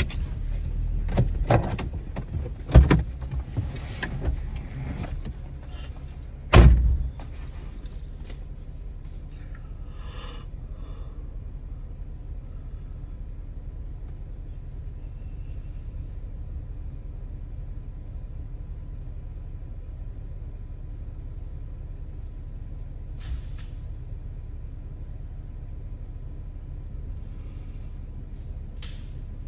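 Off-road vehicle's engine idling steadily while stopped. In the first seven seconds there is a run of clunks and knocks as a passenger climbs out, and the loudest comes about seven seconds in.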